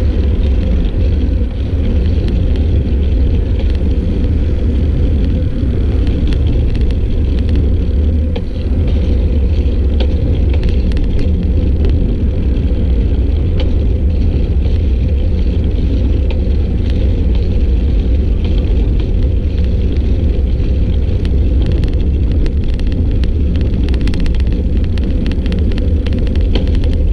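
Steady low wind rumble buffeting the microphone of a camera riding along on a moving bicycle, with a few faint ticks and rattles now and then.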